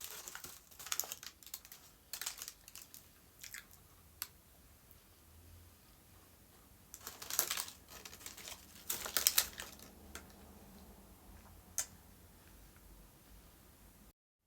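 Rustling handling noises with scattered clicks, loudest around seven and nine seconds in, and one sharp click near the end.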